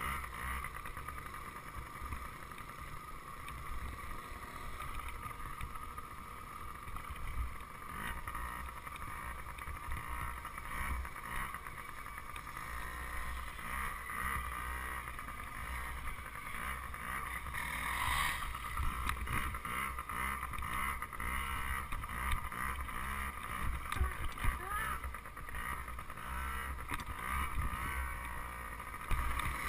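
Small dirt bike engine running steadily while riding along a bumpy dirt trail, heard through an onboard GoPro, with scattered short knocks from the rough ground.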